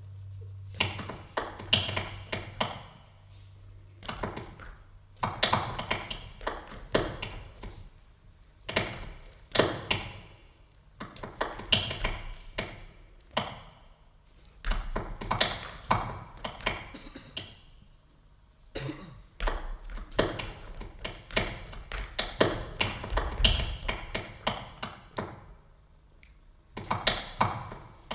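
Quick runs of sharp taps and knocks, in bursts of a second or two with short pauses between, made by a solo stage performer; a few deeper thuds now and then.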